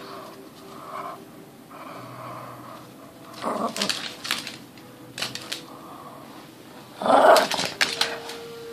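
Boston terrier growling while tugging and shaking a rope toy, with louder outbursts of dog noise about three and a half and seven seconds in.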